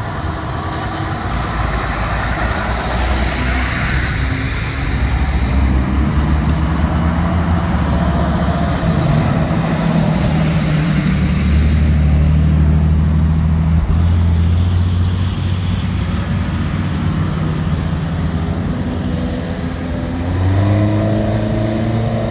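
Heavy fire-truck engines running as the apparatus drive slowly past in a line, a steady low engine drone. Near the end one engine revs up, its pitch rising.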